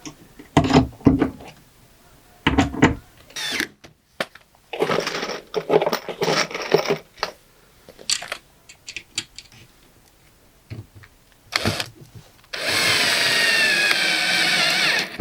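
Power drill running in short bursts among a few knocks, then a longer steady run near the end whose pitch slowly sinks.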